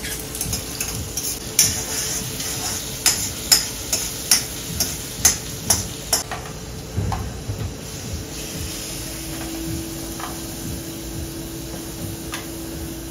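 Long metal spoon stirring and scraping a sauce in a carbon-steel wok over a gas burner: a run of sharp clinks against the pan for the first six seconds, over a steady sizzle. From about eight seconds in, a steady low hum joins the sizzle.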